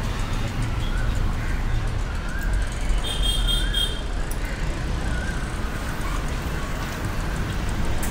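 Street ambience: the steady low rumble of road traffic, with a brief high-pitched tone about three seconds in.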